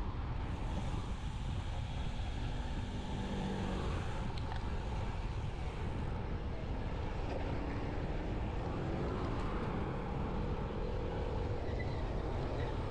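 Steady wind rush on the microphone from riding along a road, with the faint engine of a passing vehicle rising and falling in the second half.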